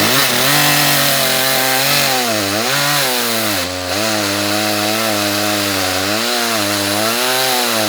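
Ported Echo CS-310 small two-stroke chainsaw cutting through a log at full throttle on a freshly sharpened chain. Its engine pitch sags and recovers a few times as the chain bites into the wood.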